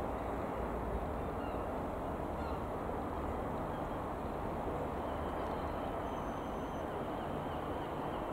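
Guimbal Cabri G2 helicopter flying past at a distance: a steady drone from its single piston engine and rotors.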